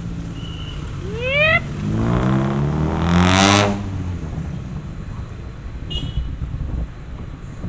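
A motor vehicle's engine passing close, its pitch rising and then falling, loudest about three seconds in, over a steady rumble of traffic. A brief rising whine comes just before it.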